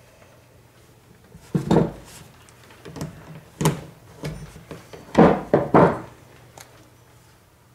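Diagonal cutters snipping and snapping at a hard plastic part, with knocks of the part and the cutters against a wooden workbench. The sounds come as a handful of irregular sharp clicks and knocks, the loudest a little past the middle.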